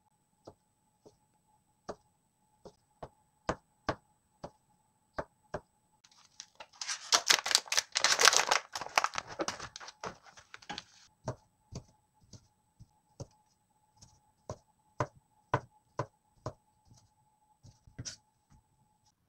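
A chef's knife chops through black olives onto a plastic cutting board in sharp, separate taps. In the middle several seconds, a plastic sausage packet is opened with loud crinkling, the loudest part. Then the knife taps start again as sausages are sliced on the board.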